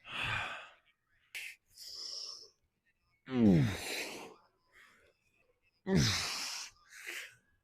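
A man's heavy breathing: three loud exhales a couple of seconds apart, the second and third voiced groans that fall in pitch, with quick sniffs and softer breaths between.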